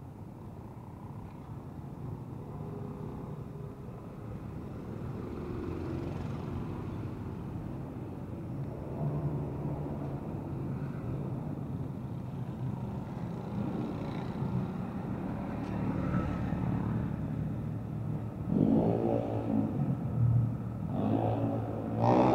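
Road traffic passing on the bridge deck: a steady rumble of engines and tyres that slowly grows louder, with two louder engine passes near the end.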